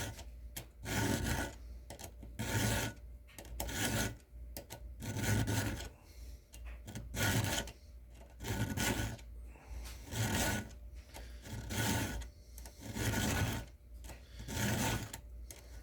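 A round chainsaw file being pushed across the cutter teeth of a saw chain, about ten even rasping strokes, sharpening a dull chain.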